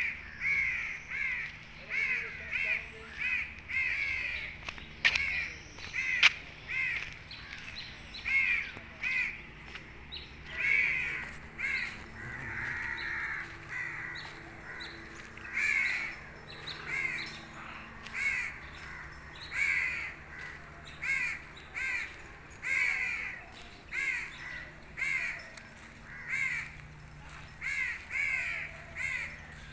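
A bird calling over and over in short, evenly spaced calls, about one a second, with one longer drawn-out call near the middle.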